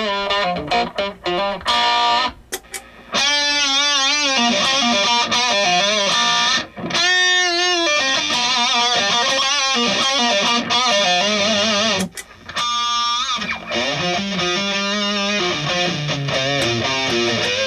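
Distorted electric guitar played through an Avid Eleven Rack, with single-note lead lines and wide vibrato on held notes. The playing breaks off briefly about three seconds in and again about twelve seconds in.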